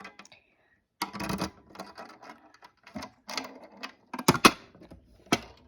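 Fire alarm pull station being reset with a hex key: clicking and rattling of the key and the spring-loaded handle, with the loudest sharp clicks in the second half.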